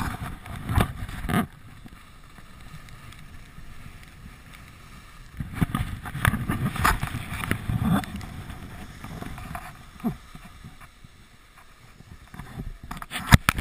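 Wind buffeting the microphone of a camera worn while skiing downhill, over the hiss and scrape of skis sliding on packed snow. The buffeting swells in uneven gusts about a second in and again from about five to eight seconds in.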